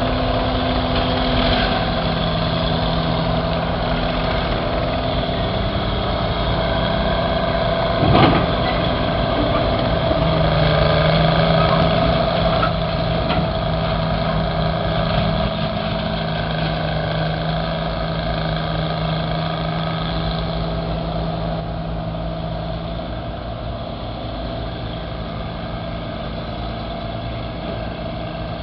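Engines of vintage Northwest backhoes running steadily under load while digging, with a sharp knock about eight seconds in and the engine note briefly louder a few seconds later.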